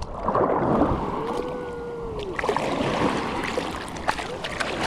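Small ocean waves washing and splashing around people standing in the water. A short humming note rises and falls about a second in.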